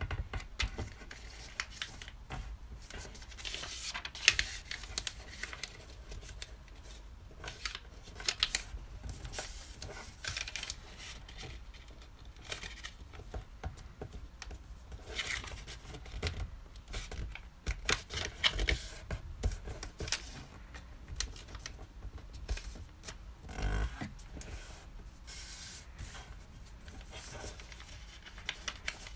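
Square sheet of colored origami paper being folded and creased by hand: irregular crinkling rustles and crisp clicks as the folds are pressed flat.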